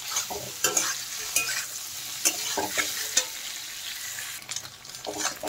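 Paneer cubes frying in mustard oil in a metal kadai, a steady sizzle. A metal spatula scrapes and taps against the pan several times in the first three seconds or so, then more softly near the end.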